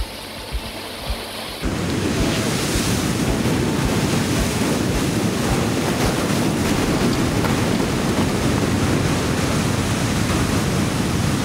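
Heavy sea surf breaking and washing over rocks, a loud steady rush with wind buffeting the microphone, which comes in suddenly about two seconds in. Before that, a quieter stretch with a few soft low thumps.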